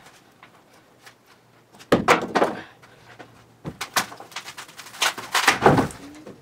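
An old wooden floorboard being pried up off the joists: the wood creaks and cracks and the nails tear loose in three loud bursts, about two, four and five seconds in.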